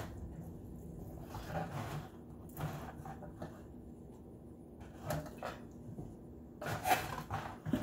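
Disposable aluminium foil roasting pan crinkling and flexing in several short bursts as hands turn and handle a raw turkey in it, the loudest burst near the end.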